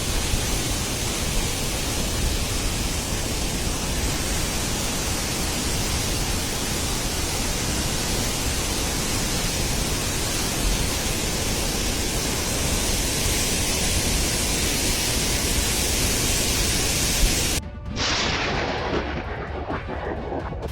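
Steady loud rushing noise without any pitch. About 18 seconds in it cuts abruptly to a different, quieter rushing noise.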